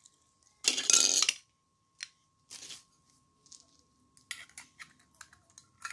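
Light plastic clicks and taps from a clear plastic toy egg being handled, with a quick run of clicks in the last second and a half. A single short, loud burst of noise about a second in.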